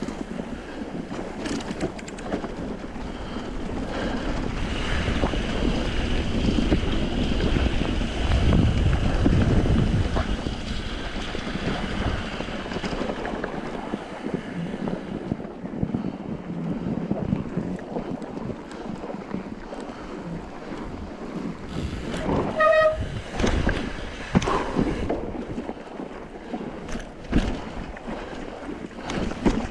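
Mountain bike tyres crunching through fresh snow as it rides, with wind buffeting the microphone and scattered knocks from bumps; the noise swells for several seconds about a third of the way in. About two-thirds of the way through, a brief high squeak sounds.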